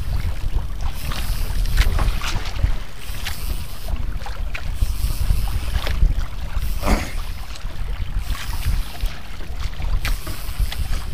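Wind buffeting the microphone in a steady low rumble, with small waves splashing and slapping against the hull of an outrigger boat.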